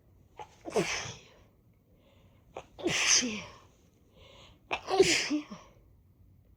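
A woman sneezing three times, about two seconds apart, each sneeze starting with a quick sharp catch of breath. The sneezes are set off by sniffing chhinkni, a herbal sneezing snuff, while her nose is congested.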